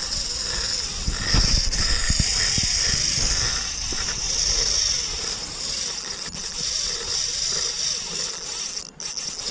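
Spinning reel's drag buzzing as a hooked Chinook salmon takes line in a run. A low rumble sits under it in the first few seconds.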